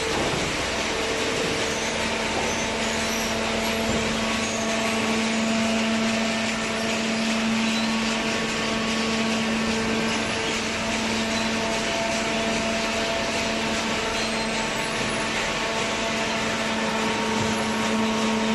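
Hydraulic scrap paper baler running: a steady machine hum from its motor and pump, with a low tone that sets in about a second in.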